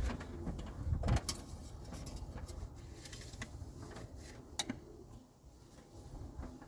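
A few sharp clicks and knocks of things being handled, the loudest about a second in and another a little past the middle, over a low rumble.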